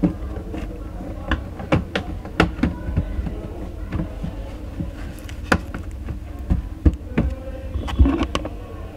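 Irregular clicks and taps, a few each second, from parts being handled during a TV repair, over a steady low hum.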